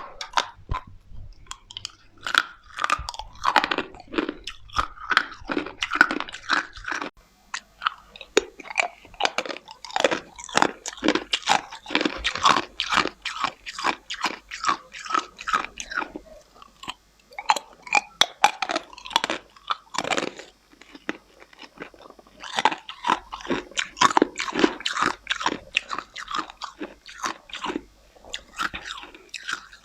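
A person biting and chewing ice close to the microphone: a rapid run of crisp crunches, two or three a second, with a few short pauses between mouthfuls.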